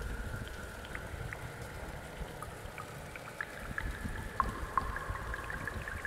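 Water running in a shallow stream over grass, with many small plinks and drips that come more often in the second half. A thin, steady high tone sits under the water sound.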